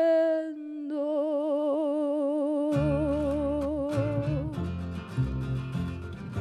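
A female singer holds a long final note into a microphone with a wide vibrato, fading out about four and a half seconds in. Partway through, instrumental accompaniment comes in with low bass notes and a strummed guitar rhythm.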